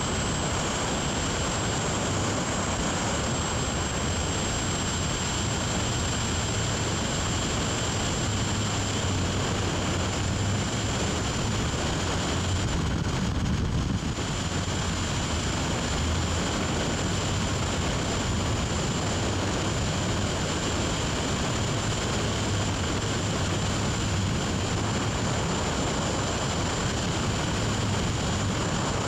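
Steady rush of freefall wind buffeting a skydiver's helmet-mounted camera microphone, a constant hiss over a deep rumble. The hiss briefly dulls about halfway through.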